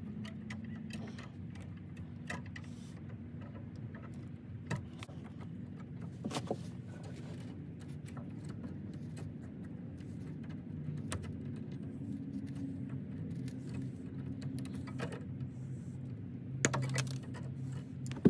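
Scattered metallic clicks and taps of electrical wires and hand tools being worked in an electrical box, a few louder clacks near the end, over a steady low hum.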